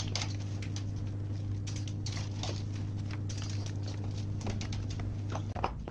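Short clicks, taps and rattles of gloved hands working plastic wiring connectors and parts in a car's engine bay, over a steady low hum that stops about five and a half seconds in.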